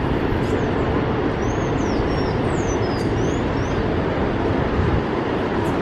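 Iguazu Falls: the steady rush of a large waterfall, with the most energy low down. Several short, high bird chirps come over it near the middle.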